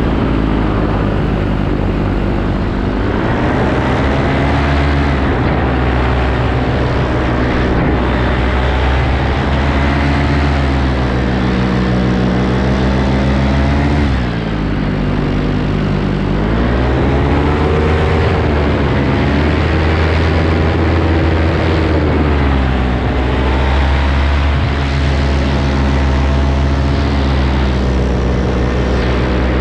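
Paramotor engine and propeller running in flight, a loud continuous drone. A steady low hum sits under higher engine tones that rise and fall several times, with a short dip about halfway.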